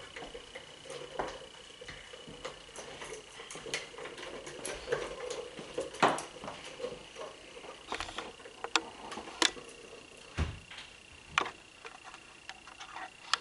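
Yellow-naped Amazon parrot bathing in a water cup: scattered, irregular light taps and clicks with a few louder knocks, over a faint steady high whine.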